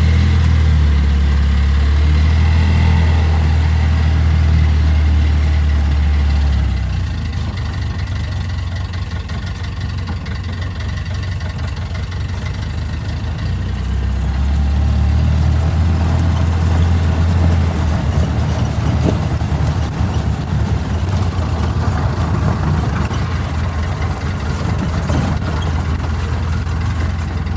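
Vehicle engine running with a low, steady drone that is louder for the first several seconds and again about halfway through, over a rushing background noise.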